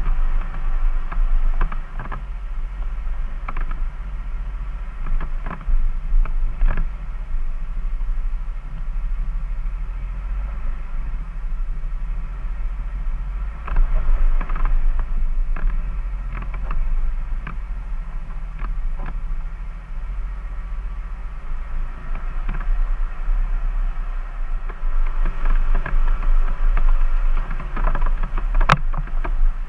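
Jeep engine running low and steady as it crawls over rough off-road ground, with scattered creaks and knocks from the body and suspension; a sharp click near the end.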